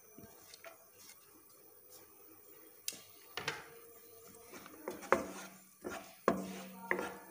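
Wooden spatula stirring chopped garlic in melted ghee and butter, scraping and knocking against the pan. Quiet at first, then a series of sharp scrapes and taps from about three seconds in.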